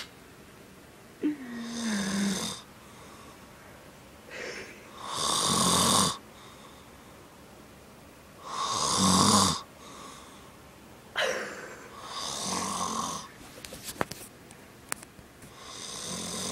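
A man snoring in deep sleep: a loud snore about every three and a half seconds, with quieter breaths in between.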